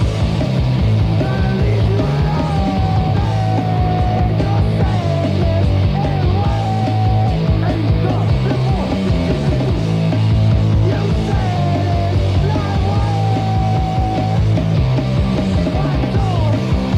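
Punk rock band on a demo recording: dense, loud guitars and bass over fast, even drumming. A high melodic line bends up and holds twice over the top.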